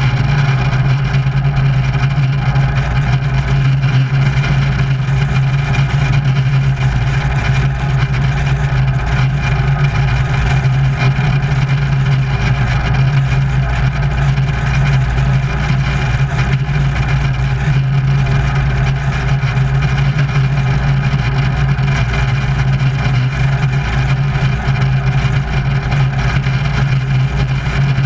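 Wolf Pitts Pro aerobatic biplane's piston engine running steadily at low power on the ground, propeller turning, a constant low drone without any rise or fall in revs, heard close up from outside the airframe.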